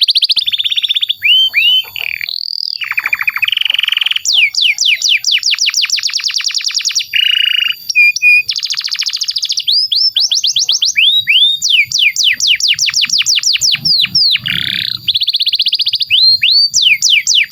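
Canary singing a long, unbroken song. It moves between fast trills of rapidly repeated sweeping notes, about seven a second, and buzzy rolls, with a few short held notes in between.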